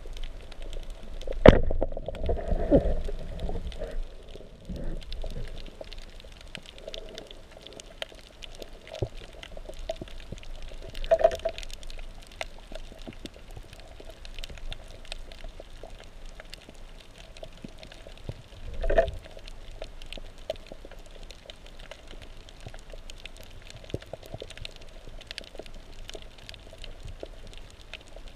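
Underwater ambience picked up through a GoPro's waterproof housing: a steady crackle of fine clicks, with three louder gurgling, pouring-water bursts. The first burst, near the start, is the loudest.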